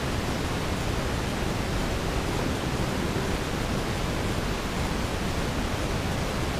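Steady rushing wind on the microphone, even and unbroken; the wooden trap sticks being set make no sound that stands out.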